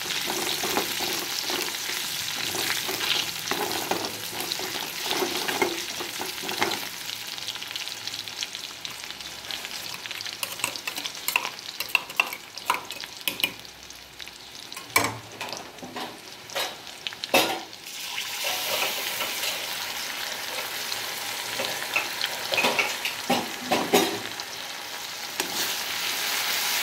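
Spice paste sizzling in oil in a metal wok while a spatula stirs it, scraping and tapping against the pan. About halfway through the sizzle drops for a few seconds, broken by several sharp knocks of the spatula, then picks up again.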